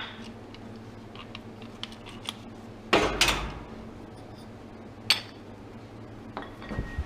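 Small metal parts of a refrigerator fan motor clinking and clattering as it is taken apart by hand, with a louder clatter about three seconds in and another about five seconds in.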